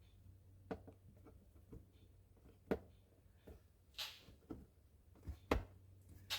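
Faint handling noises: about half a dozen light clicks and taps of plastic parts and a silicone tube being handled while sealant is applied, with a short soft hiss about four seconds in.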